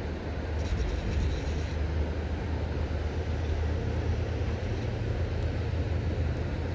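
Steady low rumble of a flowing river, with no distinct events.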